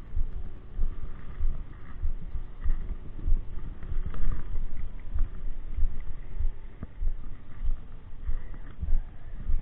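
Irregular low rumbling thumps and rubbing on an action camera's microphone, with wind noise, as the angler's arm and hands move while cranking a spinning reel.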